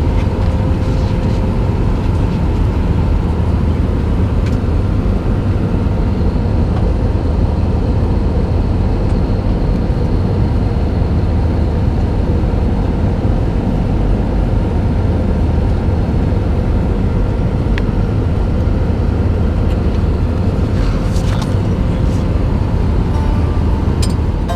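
Steady cabin noise inside an Airbus A320: a loud, even rumble of engines and airflow with a faint steady hum over it.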